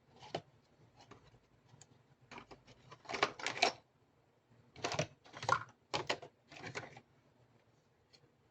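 Small plastic toy kitchen pieces being handled and unpacked: light clicks, taps and rustles in several clusters, the loudest about three seconds in and again from about five to seven seconds.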